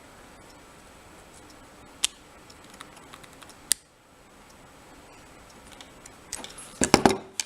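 Small metal clicks and taps of hand tools working at the retaining clip on the back of a euro cylinder lock: single sharp clicks a few seconds apart, then a quick run of louder clicks and rattling near the end.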